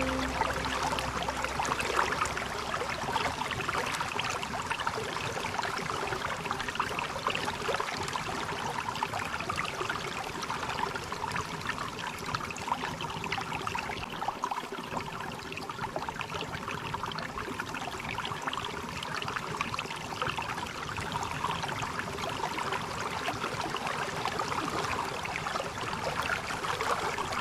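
Water streaming and splashing down a small waterfall: a steady, light, splashy rush with fine trickling detail and little deep rumble.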